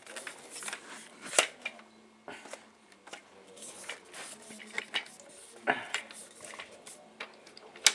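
Clicks and clacks of a lightweight Dynex tripod's legs and spreader braces being spread open, with scattered sharp knocks over softer rattling; the loudest knock comes right at the end.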